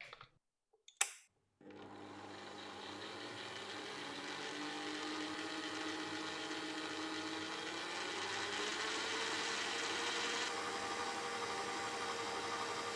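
Stand mixer with a dough hook, switched on with a click, starting up about a second and a half in and then running steadily as it mixes flour and liquid into dough. Its motor whine rises in pitch partway through.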